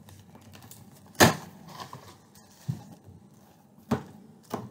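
Cardboard shipping box being opened and handled by hand: a few sharp, irregular taps and knocks, the loudest about a second in.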